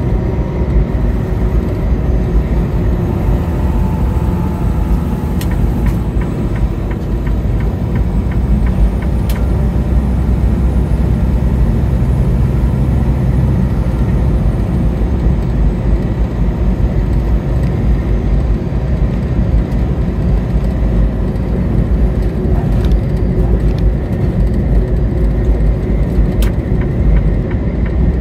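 Steady road noise of a car driving at highway speed: a deep, even rumble of tyres and engine that goes on without a break.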